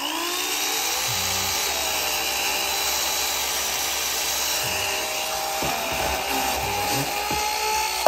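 Babyliss hair dryer's electric motor switched on with its casing off, spinning the bare plastic fan up to speed with a rising whine. It then runs steadily with a high whine and a rushing hiss, with a few light knocks from handling in the second half.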